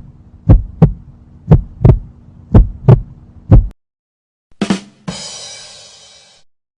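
Heartbeat sound effect: paired thumps about once a second over a steady low hum, stopping suddenly a little past halfway. It is followed by a short knock and then a brighter, noisier sound that fades out over about a second and a half.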